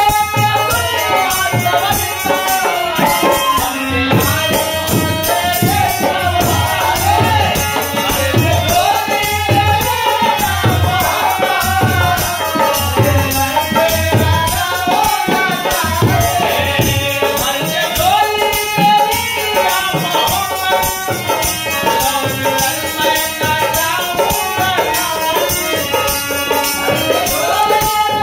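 Indian folk song played live: men singing to a harmonium, with dholak drum beats and a tambourine jingling steadily on the rhythm.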